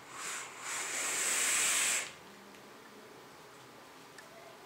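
A long breathy hiss of air drawn through a vape's atomizer on an inhale, after a brief first puff. The hiss lasts about a second and a half and cuts off abruptly.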